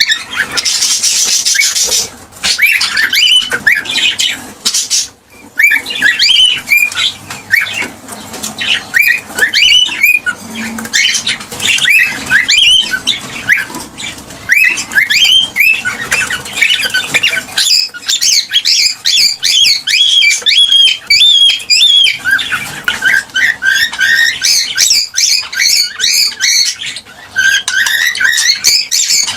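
Cockatiels chirping and calling: a continuous stream of short, high chirps and quick whistled sweeps, with a harsh screech near the start.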